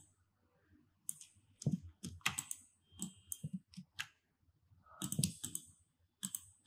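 Computer keyboard keys and mouse buttons clicking irregularly, in small clusters of clicks with short pauses between them, as shortcuts are keyed and objects are selected.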